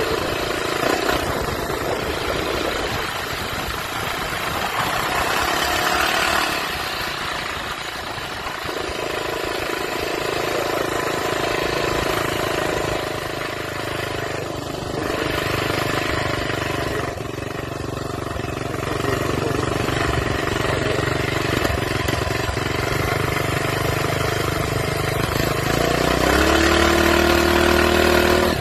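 Minibike's small engine running at part throttle while riding. The revs rise near the end.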